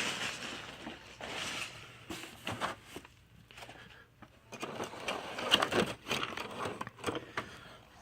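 Plastic bags of slot-car parts and packaging crinkling and rustling as they are handled, in uneven bursts with a few small clicks.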